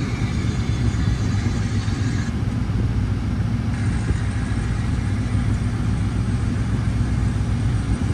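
Ram TRX's supercharged 6.2-litre V8 running steadily with a low rumble, without revving.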